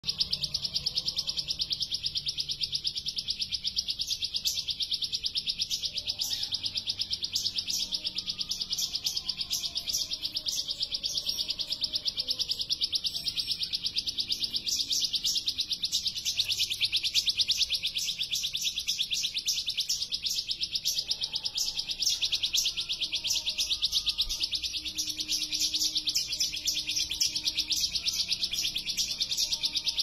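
Bar-winged prinia (ciblek) singing a very long, fast, unbroken trill of high notes, the rattling 'ngebren' song prized by bird keepers.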